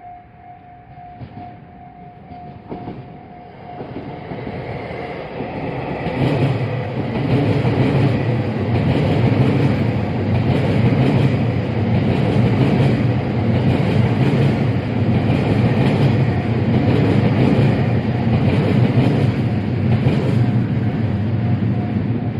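Level crossing alarm bell ringing in quick, steady pulses. Then a 287-series limited express electric train passes close by, getting louder over a few seconds, its wheels clacking rhythmically over the rail joints. The crossing bell can be heard again near the end.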